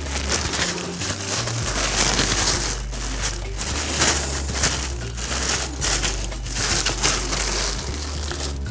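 Thin plastic wrapping crinkling and crumpling in irregular surges as it is handled and pulled off a new filter.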